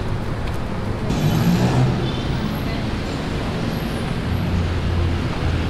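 Steady city road traffic noise from cars on a busy street, with a low rumble underneath.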